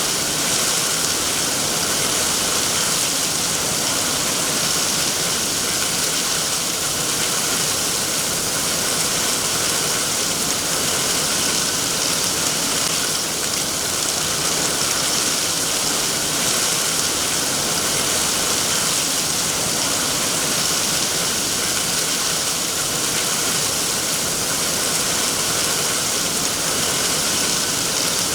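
Steady heavy rain falling, an even hiss with no breaks or separate drops standing out.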